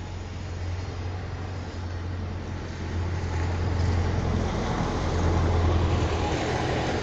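Steady low outdoor rumble with a hiss over it, growing louder about three seconds in.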